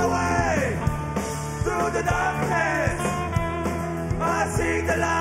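Rock band music: drums keep a steady beat under held bass notes, with a lead line of bending, sliding notes over them.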